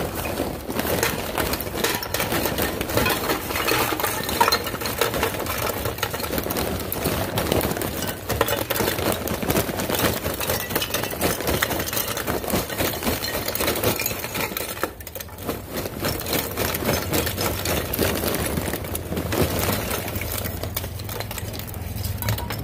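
Charcoal pieces being poured into a gravity-fed smoker's charcoal chute, a steady dense clatter of hard chunks knocking together and against the metal, with a short pause about fifteen seconds in.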